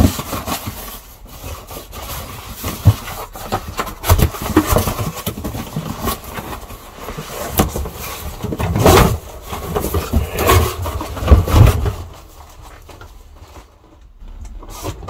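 Cardboard helmet box being picked up and handled: irregular rustling, scuffs and knocks, with a few louder bumps. It goes quieter for a couple of seconds near the end.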